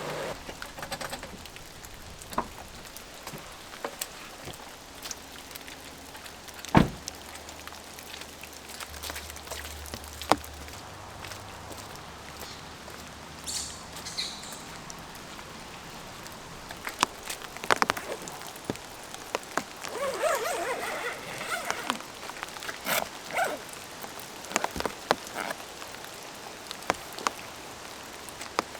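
Steady rain falling, with louder drops and drips ticking and knocking irregularly; the sharpest knock comes about seven seconds in.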